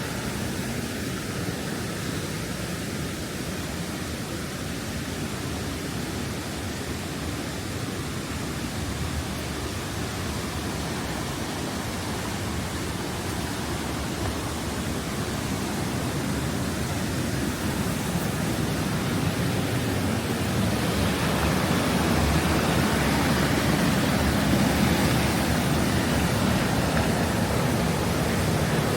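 Steady rush of flowing water, growing louder about twenty seconds in.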